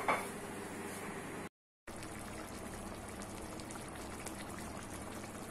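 Chicken pieces and tomatoes simmering in liquid in a steel pot, a soft steady bubbling with faint crackles. The sound cuts out completely for a moment about a second and a half in.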